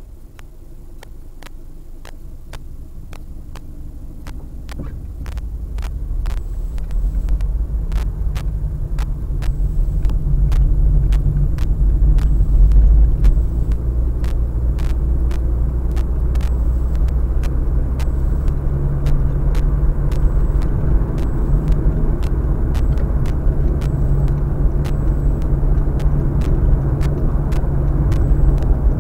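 Road noise inside a Honda Fit's cabin as the car accelerates onto an expressway: engine and tyre noise rise steadily over the first ten seconds or so, then settle into a steady low rumble at cruising speed. Faint, regular clicks run underneath.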